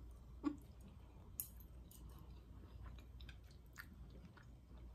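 A person chewing food close to the microphone: scattered soft wet clicks and smacks of the mouth.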